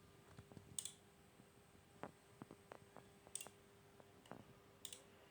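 Near silence with scattered faint clicks and taps, and three brief soft hisses, over a faint steady hum.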